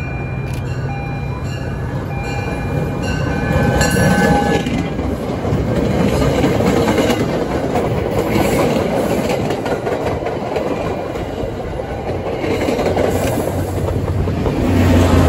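MBTA commuter rail train pulling in and passing close by. A dinging repeats evenly for the first few seconds, then the coaches' wheels rumble and clack over the rails. The diesel locomotive pushing at the rear grows louder near the end.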